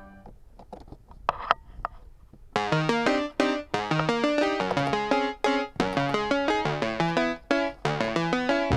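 Background music: a few soft, scattered notes, then from about two and a half seconds in a quick, bouncy keyboard melody with a steady beat.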